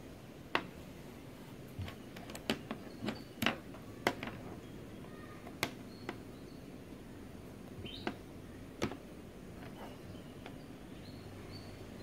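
Scattered light clicks and taps, about a dozen, mostly in the first three quarters, from handling a DC power-adapter barrel plug and multimeter test leads. A few faint bird chirps in the background.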